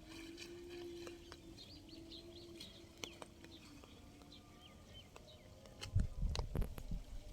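Birds chirping in short repeated notes over a low steady hum that fades after about three seconds. Near the end come loud low thumps and rumbles.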